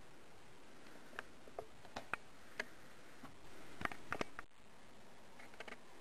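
Scattered light clicks and knocks over a faint steady hiss, with a cluster of sharper knocks about four seconds in, as from handling a camera or small metal parts.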